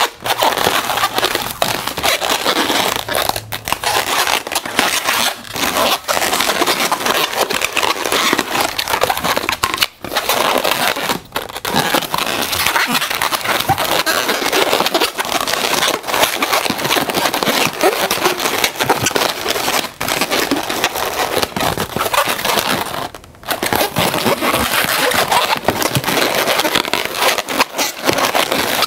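Red 260 latex twisting balloon being twisted and looped by hand: a continuous dense rubbing noise of latex against latex and fingers, broken by a few brief pauses.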